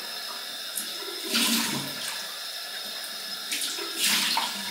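A cold tap running into a sink while water is splashed onto the face to rinse after a shave, with two louder splashes, about a second and a half in and again near the end.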